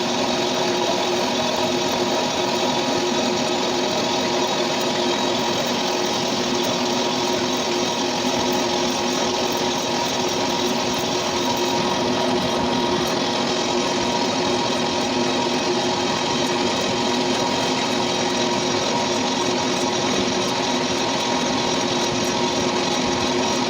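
Metal lathe running steadily while machining a cast belt pulley: a constant drive hum with several steady tones and a continuous cutting hiss.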